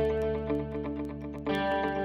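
Background music with a steady beat; the chord changes about one and a half seconds in.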